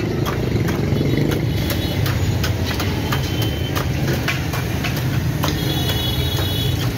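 An engine or motor running steadily with a low hum. Irregular sharp clicks and clinks sound over it, and brief high ringing tones come about three seconds in and again near the end.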